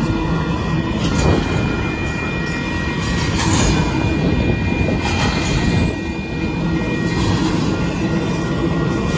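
Kansas City Southern de Mexico double-stack intermodal freight train passing close by: a steady rumble and clatter of the container well cars rolling over the rails.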